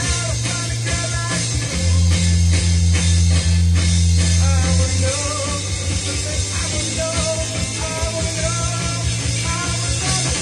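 A 1968 rock song playing from a vinyl record on a turntable: electric guitar, bass and singing, with the bass heavier for a few seconds about two seconds in.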